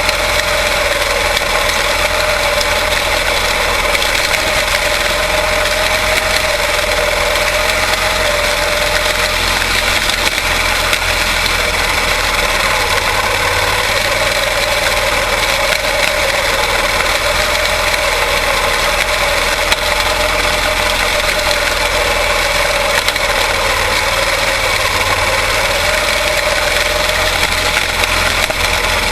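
Quarter midget race cars' small single-cylinder Briggs & Stratton Animal engines running together in a race, a loud, steady drone whose pitch wavers slightly.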